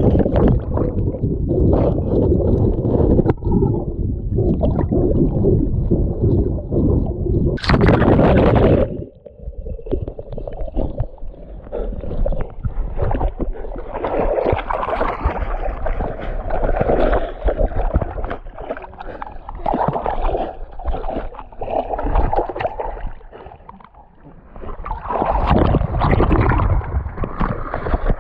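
River water sloshing and splashing close to the camera's microphone, a dense churning rumble, with a louder, sharper splash about eight seconds in and a brief lull near the end before it picks up again.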